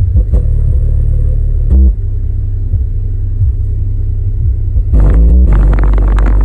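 Infinity BU-1 8-inch powered subwoofer playing a loud, deep bass test track. The bass changes just under two seconds in and drops lower and gets louder about five seconds in.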